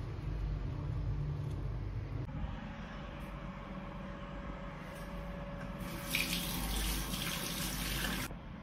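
Water pouring from an electric kettle into a mug, a low rumble for about two seconds. Then a bathroom sink tap runs with a loud, even hiss for about two seconds and is turned off abruptly.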